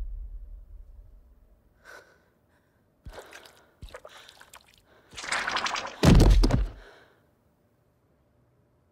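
A woman gasping: a few shaky breaths, then two loud gasps, about five and six seconds in.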